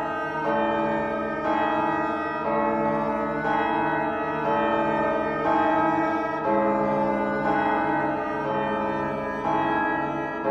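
Background music: slow, sustained keyboard chords, organ-like, changing about once a second.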